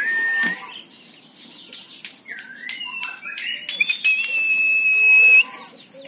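Someone whistles long, level notes: a short one at the start, then a longer, louder one about four seconds in that rises at its end. Short bird chirps come between them.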